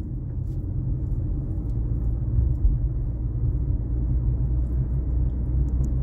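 Car driving, a steady, muffled low rumble of engine and road noise.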